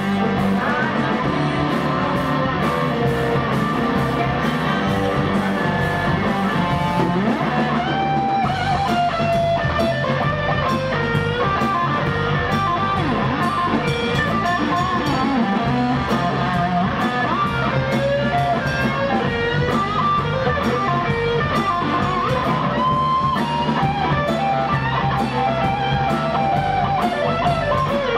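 Live blues-rock band playing an instrumental passage: a lead electric guitar plays bending notes over bass, rhythm guitar and drums, with cymbals keeping a steady beat.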